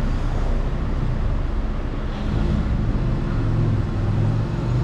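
Steady low rumble of a running engine, a little stronger from about three seconds in.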